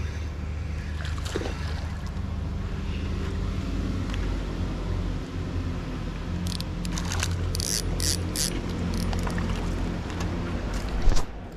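Steady low hum of a boat motor. About halfway through comes a run of short splashy bursts, as a hooked smallmouth bass thrashes at the surface while it is brought in.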